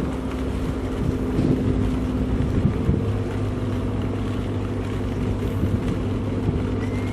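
An engine running steadily at a constant speed, a low even hum, with a few light knocks in the first three seconds.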